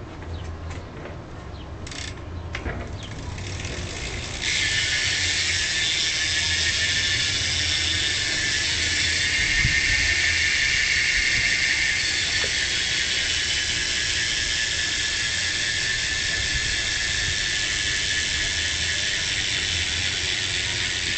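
BMX rear cassette hub freewheeling as the back wheel spins: a few clicks, then from about four seconds in a loud, steady, high-pitched buzz from the ratchet.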